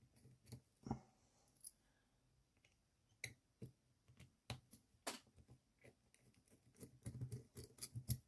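Faint, irregular clicks and light scrapes of a small screwdriver turning out screws from the plastic chassis of a model locomotive tender, with fingers handling the parts; the clicks come closer together near the end.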